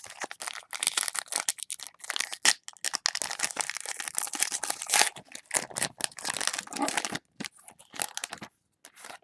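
A trading-card pack's plastic wrapper being torn open and crinkled by hand: dense crackling for about seven seconds, then a few short rustles near the end.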